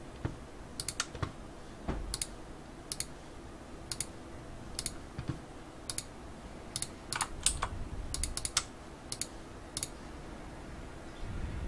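Scattered keystrokes and clicks on a computer keyboard and mouse, one sharp tap at a time at about one a second, with a quick run of several taps around eight seconds in.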